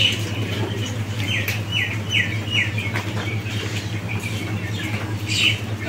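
A bird calling a run of four short, falling chirps, evenly spaced about half a second apart, a little over a second in, over a steady low hum.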